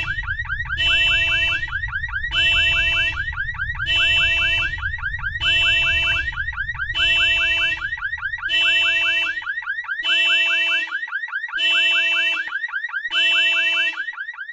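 Electronic alarm: a rapidly warbling tone with a pulsing chord that repeats about every second and a half. Under it is a low earthquake rumble effect that fades away about two-thirds of the way through.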